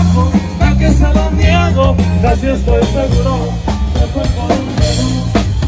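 Live band playing a corrido: held low bass notes under guitar lines and a drum kit keeping the beat.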